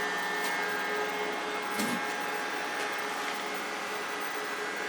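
Steady whir of solar charge controllers' cooling fans running flat out in the heat, with a constant electrical whine over it and a faint click about two seconds in.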